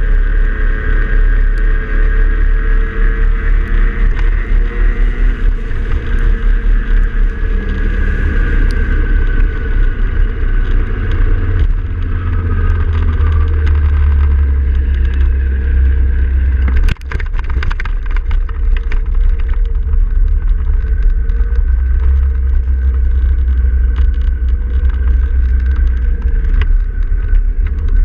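Heavy wind buffeting on the microphone of a moving road vehicle, over the vehicle's running engine and road noise, with the engine note drifting slowly in pitch. Partway through, the noise drops out for an instant with a click.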